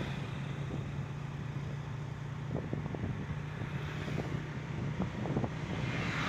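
A vehicle engine running steadily on the road: a low, even hum.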